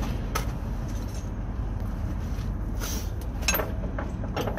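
A few sharp metal clicks and clinks of a wrench on the semi truck's shock absorber mounting bolt, one near the start and several close together near the end, over a steady low rumble.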